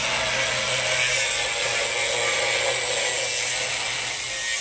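Handheld angle grinder running steadily with its disc biting into a pickup truck's steel frame rail: a continuous high whine and rasping hiss of metal being cut, throwing sparks.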